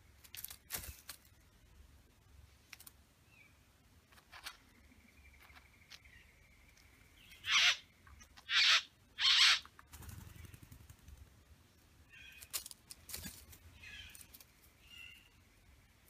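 Male satin bowerbird calling at its bower: three loud, harsh, hissing calls in quick succession about halfway through, with a few sharp clicks near the start and softer short buzzy calls near the end.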